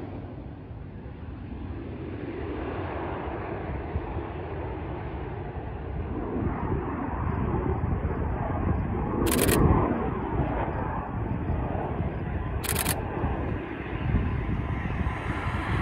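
Twin GE F414 turbofan engines of an EA-18G Growler on landing approach: a steady jet rumble that swells a little past halfway. Two short bursts of rapid camera-shutter clicks near the end.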